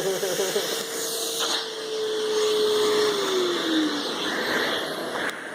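Hoover Futura 4.0 peak horsepower canister vacuum running with its upholstery nozzle on: a steady rush of air under a motor whine. About three seconds in, the whine slides down in pitch.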